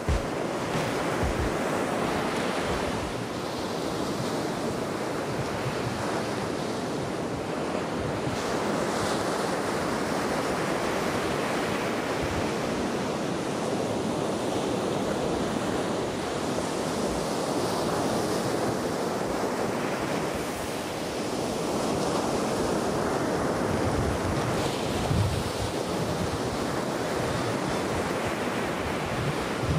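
Ocean surf breaking on a beach: a steady rushing wash of waves that swells and eases as each wave comes in, with wind buffeting the microphone in low thumps.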